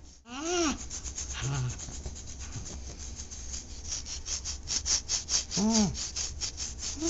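Wooden back scratcher rubbed briskly back and forth over a dog's short fur: a steady run of scratchy strokes that come quicker and stronger from about four seconds in. Twice, near the start and again near six seconds, a short moaning voice rises and falls over the scratching.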